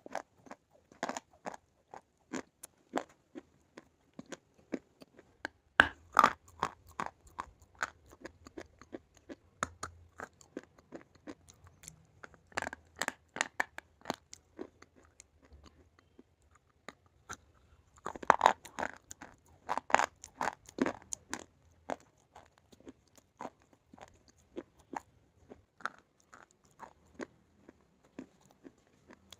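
A person biting and chewing pieces of slate bar, a steady run of crisp, sharp crunches. The crunches come thicker and louder around six seconds in, again around thirteen seconds, and most of all around eighteen to twenty-one seconds, where fresh bites are taken.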